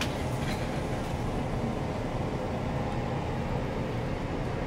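Steady outdoor background noise of distant traffic: an even low rumble with hiss.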